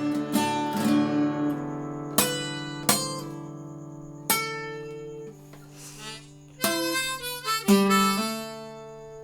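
Instrumental passage of a song with no singing: chords struck a handful of times and left to ring out, with long held notes sounding under them, fading toward the end.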